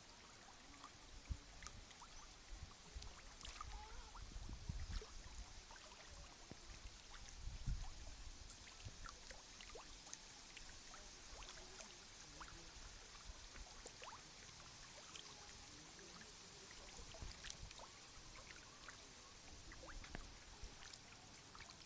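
Faint water lapping, scattered with many small ticks and splashes as a shoal of fish breaks the surface, and a few low bumps about four to five seconds in and again near eight seconds.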